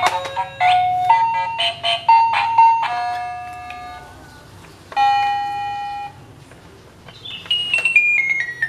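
Battery-powered toy keyboard playing electronic beeping notes: a quick tune, one held note, then near the end a run of short notes stepping down in pitch.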